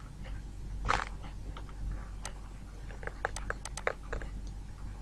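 Faint clicks and taps of a stylus writing on a tablet, bunched together in the second half, over a low steady hum.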